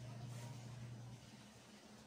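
Faint room tone with a low, steady hum that fades out a little over a second in.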